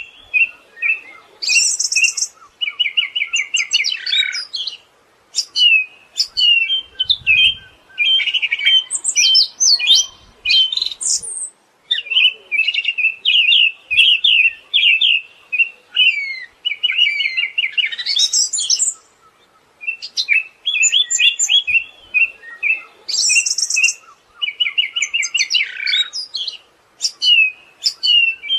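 Siberian thrush singing a fast, varied song of rapid trills and chattering phrases, broken by short pauses, with occasional high thin notes; the same run of phrases comes round again about twenty seconds later.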